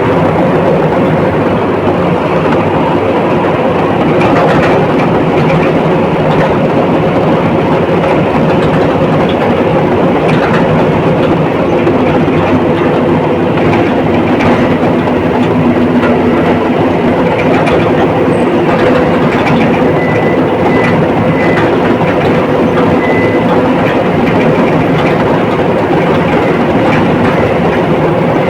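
Komatsu D85ESS crawler bulldozer working, its diesel engine running steadily with the clanking of its steel tracks.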